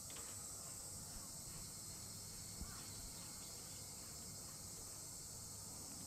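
Steady, high-pitched chorus of night insects, with one faint tap about two and a half seconds in.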